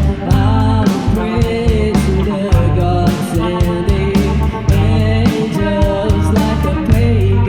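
A rock band playing a slow song with a singer over guitar, bass and drums, with regular drum hits.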